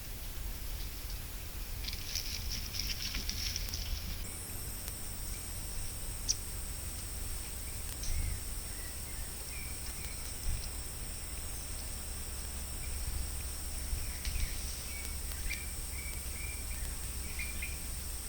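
Outdoor forest ambience: a low steady rumble, a brief crackling rustle about two seconds in, then a steady high-pitched whine from about four seconds on, with faint short chirps scattered over it.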